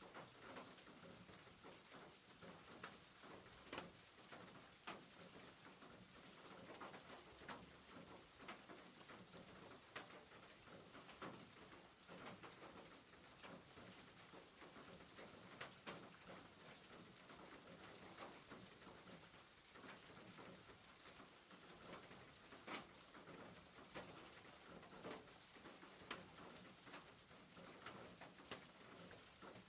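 Rain falling on a roof: a quiet, steady patter with frequent irregular sharp drop taps.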